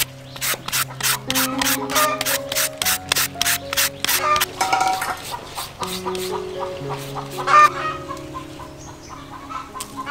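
A julienne peeler scraping strips off a firm unripe fruit, quick rasping strokes about four a second for the first six seconds, over background music with held notes. Chickens cluck in the second half, with one loud call about seven and a half seconds in.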